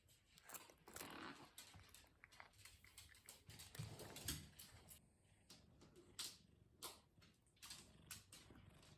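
Faint small sounds of a cat close to the microphone: scattered clicks and a few short, soft, noisy puffs, the loudest about four seconds in and again a little after six seconds.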